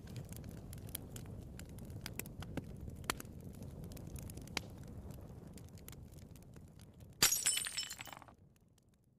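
A low steady rumble with scattered faint clicks, then about seven seconds in a sudden crash of glass shattering, with high tinkling for about a second before it fades away.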